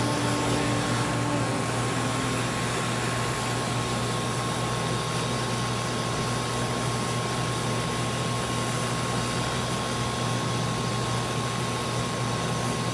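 Steady fan hiss from bench soldering equipment, with a constant low hum and a thin steady whine; a few faint tones fade out in the first couple of seconds.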